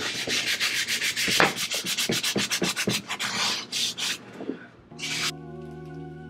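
Hand sanding the inside of a varnished wooden tray with a sanding pad: quick back-and-forth strokes, about five a second, scuffing the old varnish so paint will hold. The sanding stops about four seconds in, and soft background music comes in near the end.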